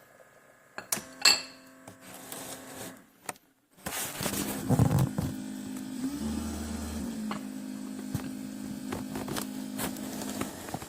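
Keurig K-Classic coffee maker: a few sharp clicks, then its pump runs with a steady hum for about seven seconds before cutting off near the end.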